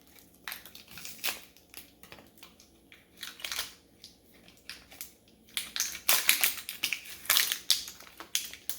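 Packaging of a new padlock being opened by hand, with irregular crackling and crinkling that grows busier about halfway through.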